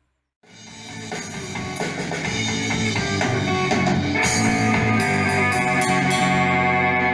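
Rock music with guitar and drums, fading in about half a second in after a moment of silence and holding at full level with sustained chords.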